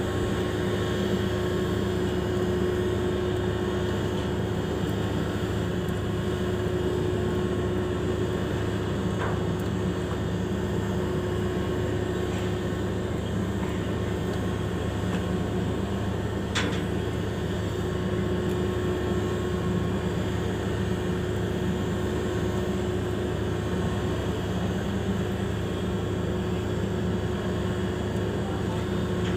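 Steady machinery drone from a large moored cargo ship, its engines or generators running, a low rumble with one constant hum tone over it. A single faint tick about halfway through.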